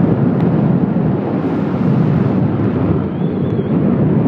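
Steady loud rush of wind buffeting the microphone on a moving motorcycle, with the engine and road noise mixed in underneath.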